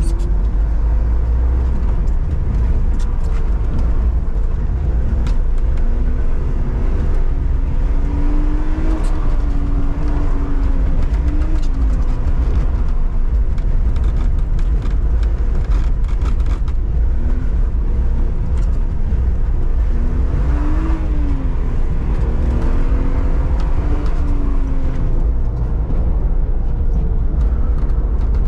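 BMW 128i's 3.0-litre straight-six engine heard from inside the cabin under a heavy low rumble, its pitch sweeping up and down again and again as the car is driven hard, accelerating and lifting through a tight coned course.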